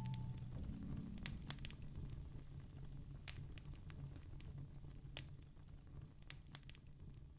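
Crackling wood fire: scattered sharp pops and clicks over a steady low rumble, slowly getting quieter. A last piano note dies away at the start.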